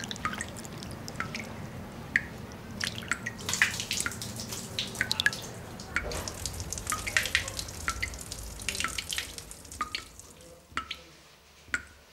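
Water dripping: many irregular drops over a faint low rush of running water. The drops thin out and fade until only a few single drops remain near the end.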